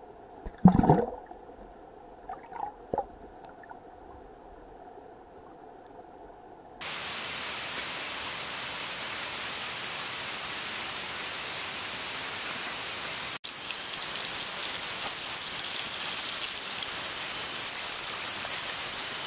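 Butter and oil sizzling in a frying pan over a campfire, a steady crackling hiss. Before it, a quieter steady hiss from the fire under a steaming pot, and at first muffled underwater sound with a few short sounds.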